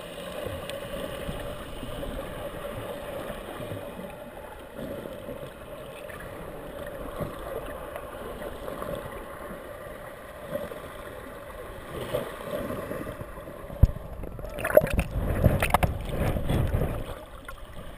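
Muffled underwater sound heard through a GoPro's waterproof housing: a steady low hum, then, from about four seconds before the end, loud irregular splashing and knocks from the swimmer moving toward the surface.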